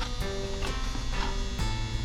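Background music: held notes over a steady beat of about two strokes a second.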